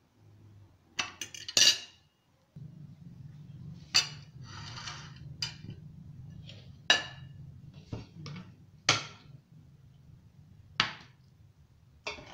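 Crockery and cutlery handled on a marble countertop: a plate, a fork and a glass tart dish set down and moved, giving about eight sharp, separate clinks and knocks.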